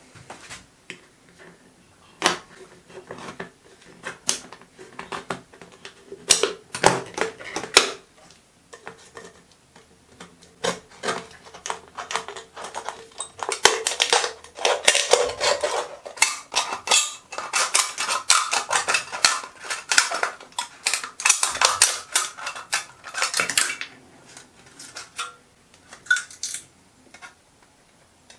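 A thin aluminium drink can being cut apart with a craft knife and scissors: sharp clicks, snips and crinkling of the thin metal, scattered at first and coming thick and fast in the middle.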